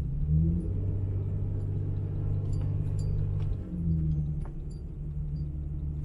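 Toyota Tacoma pickup's engine running under load, heard inside the cab, as the tires spin for traction on a slippery snow-covered hill. Its pitch shifts about half a second in and again a little past the middle.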